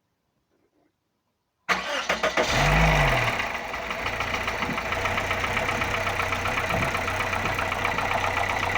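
Toyota Corolla's 1ZZ-FE 1.8-litre four-cylinder engine cranks and starts about two seconds in. Its revs flare up and fall back, then it settles into an idle with a fast, even ticking knock.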